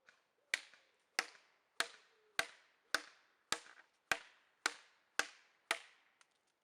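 Electric airsoft MP5 replica firing single shots: about ten sharp cracks, evenly spaced at a bit under two a second, each with a short fading tail.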